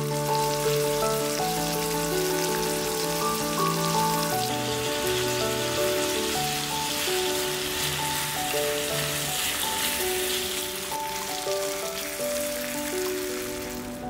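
Sauced beef and rice sizzling in a hot pan, a steady crackling hiss, over soft piano music.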